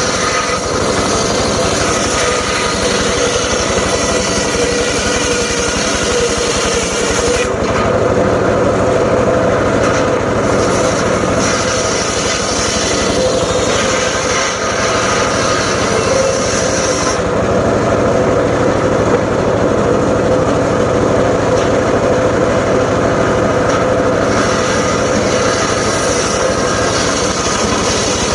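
Homemade engine-driven circular saw running steadily, with a high hiss that fades for a stretch in the middle and comes back near the end.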